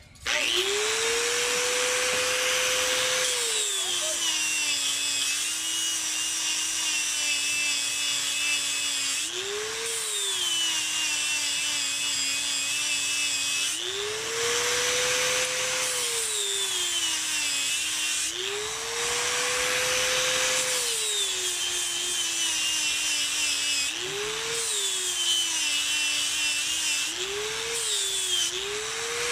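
Electric angle grinder switched on and grinding a water buffalo horn blank with an abrasive disc. The motor whine drops in pitch each time the disc is pressed into the horn and climbs back when the pressure eases, about six times, over a steady rasping grind.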